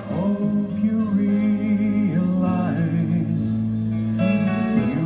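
A slow, sentimental song: a singer holding long, wavering notes over a steady instrumental accompaniment.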